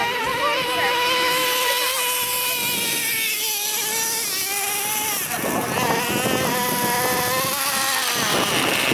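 Traxxas Revo RC monster truck's small nitro engine running at high revs with a high-pitched, wavering whine that dips and climbs as the throttle changes. In the second half the whine grows rougher, mixed with a coarse noise from the tyres on loose gravel.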